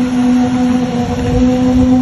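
Loud engine noise: a steady hum over a low rumble.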